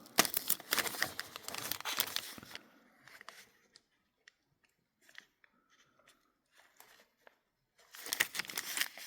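Crinkling and rustling of packaging as small sewing machine parts are handled and sorted. There is a busy burst for the first two and a half seconds, then a few faint clicks, then another burst of rustling near the end.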